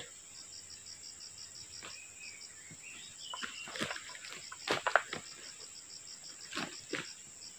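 Oil palm fruit bunches kicked and shoved along the ground by a booted foot, a few scuffing knocks and rustles, loudest about five seconds in. Under them, steady pulsing insect chirping.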